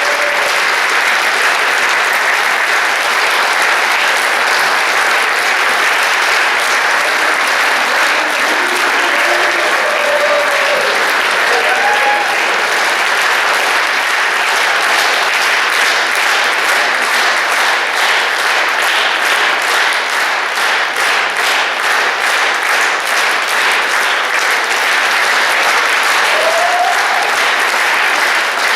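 Theater audience applauding steadily, with a few brief voices calling out over the clapping.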